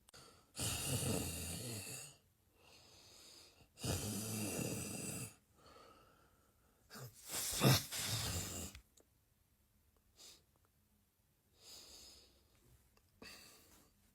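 A person snoring: three loud snores about three seconds apart, the third the loudest, with quieter breaths between and after.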